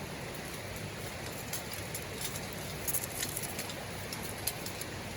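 Wood campfire burning in a fire pit, crackling with scattered sharp pops over a steady background hiss.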